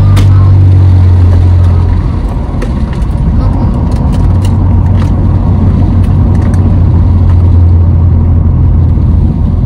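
Steady low drone of a car's engine and road noise heard from inside the cabin while driving, with a few light clicks in the first half.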